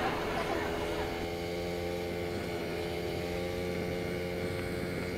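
Single-cylinder four-stroke dirt bike engine running at a steady speed while riding, with a short rush of noise at the start.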